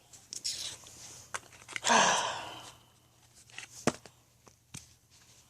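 Light handling noise: scattered small clicks and taps, with a short breathy noise about two seconds in.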